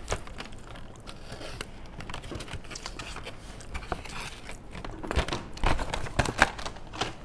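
A white paper cake box being unfolded and opened by hand: light crinkling and rustling of the paper, with scattered small taps that get busier in the second half.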